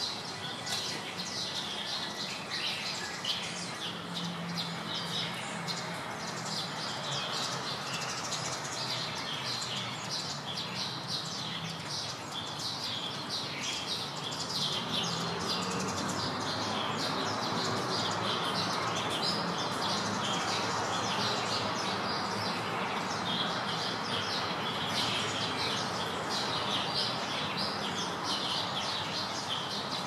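Many small birds chirping continuously over steady outdoor background noise, which grows a little louder about halfway through.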